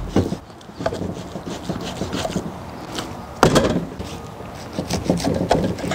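Knife cutting and scraping through a raw tomahawk ribeye on a wooden cutting board, with irregular scrapes and knocks of the blade against the wood; the loudest knock comes about three and a half seconds in.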